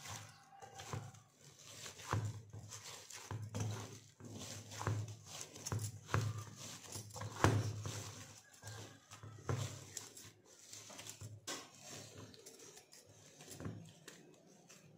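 Fenugreek-leaf dough being kneaded by hand in a stainless steel bowl: irregular soft thuds and squishes as it is pressed and folded against the bowl, about one or two a second, with the loudest press about halfway through.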